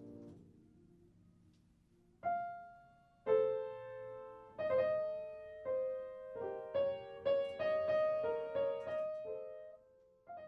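Background piano music: after a held chord fades out, single notes and a slow melody are played, each note struck and then dying away.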